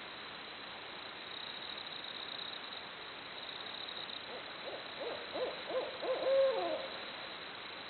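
Barred owl calling: a quick run of rising-and-falling hoots starting about four seconds in, ending in a longer drawn-out hoot that trails downward, over a steady background hiss.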